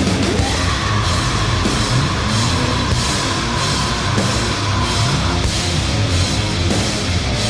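Heavy rock music with drums, with one high note held for about five seconds through the first part.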